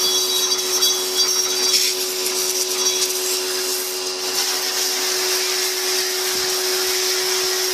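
Sun Joe 1450 PSI electric pressure washer running: a steady motor and pump hum under the hiss of the water jet striking a car's tyre and body panel.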